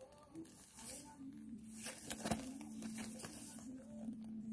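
Faint handling of a cardboard palette box: soft rustles and a few light taps, over a steady low hum.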